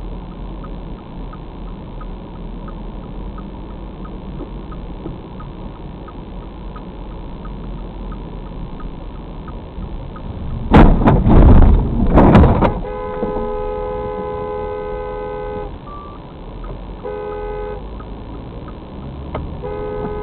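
Inside a car cabin, over a steady road and engine hum, a turn-signal clicker ticks about twice a second. About eleven seconds in, a Ford Transit van sideswipes the car with a loud crunching, scraping crash lasting about two seconds. A car horn is then held for about three seconds, followed by a short honk and two more short honks near the end.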